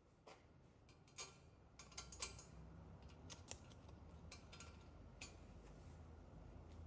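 Faint, scattered metallic clicks as a steel bolt and nut are set into the relieved pocket on a cast iron exhaust manifold flange, the loudest about two seconds in.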